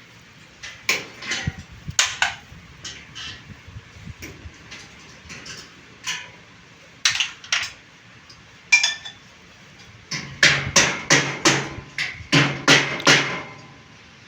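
Hammer blows on a bed base: scattered single strikes, then a quick run of about ten blows in a row near the end.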